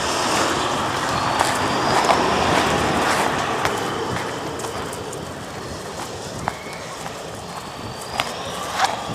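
Traffic on a wet street in the rain: the hiss of a vehicle passing on wet tarmac, fading away over the seconds, with small clicks on top.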